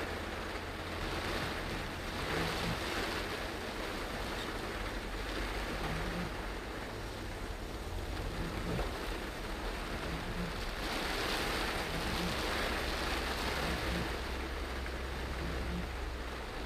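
Heavy rain on a moving car's roof and windscreen, mixed with tyre hiss on the flooded road and a low steady road rumble, heard from inside the cabin. The rain noise swells about two seconds in and again for a few seconds past the middle.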